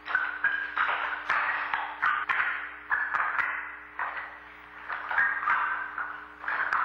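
Performance music of struck, bell-like metal percussion: irregular strikes, two or three a second, each ringing briefly at a high pitch, over a faint steady low hum.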